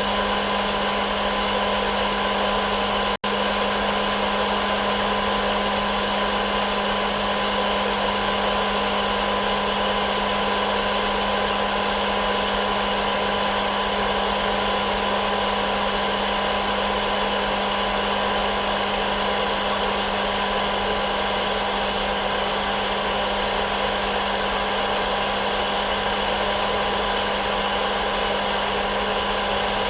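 Hair dryer running steadily as white noise, a constant rushing whoosh with a steady motor hum. It cuts out for an instant about three seconds in.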